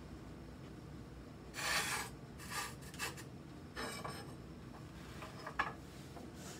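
Stoneware plates being set down and slid into place inside an electric kiln: a few short scraping and rubbing sounds, the longest about a second and a half in, with a light click near the end.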